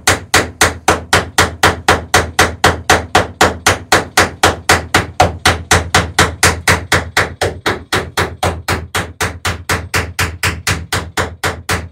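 A hammer peening a rivet in the dory's lapped sheer plank against a backing iron, in a steady rapid run of blows, about four a second.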